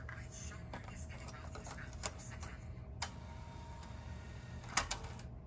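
1988 Toyota AM/FM cassette car stereo playing faintly through its bench-test speakers at low volume, with a steady low hum underneath. A few sharp clicks come about two, three and nearly five seconds in.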